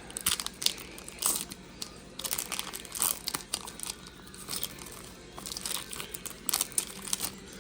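Foil wrapper of a 1992-93 Fleer Ultra basketball card pack being torn open by hand, crinkling in irregular sharp crackles; the stiff foil is hard to open.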